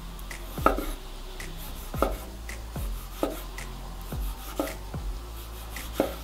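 Large kitchen knife slicing tomatoes on a wooden cutting board: five knocks of the blade meeting the board, about one every second and a half, over faint background music with a ticking beat.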